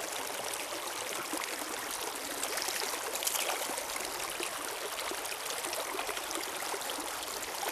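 Shallow mountain stream running over rocks in a steady rushing riffle, with a few light splashes about three seconds in as a trout is handled in the water.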